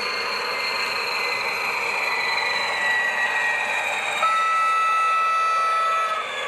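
Model PKP SM42 diesel shunting locomotive with sound, its engine running with a steady hum and a whine that slowly drops in pitch, then a horn blast of about two seconds starting about four seconds in.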